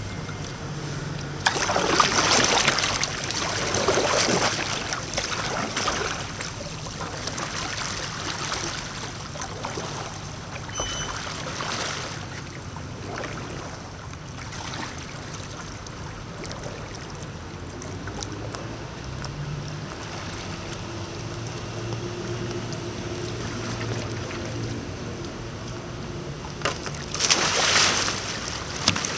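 River water lapping with wind noise. A louder stretch of paddle splashing comes in the first few seconds as the kayak moves off, and a short rush of splashing near the end as the kayak capsizes for a roll.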